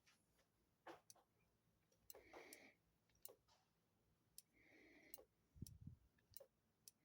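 Near silence with faint, scattered clicks and ticks, about nine in all at irregular intervals.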